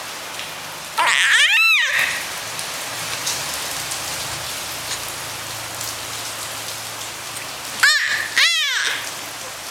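Baby crying with short, high-pitched wails that rise and fall in pitch, once about a second in and again near the end, over a steady hiss.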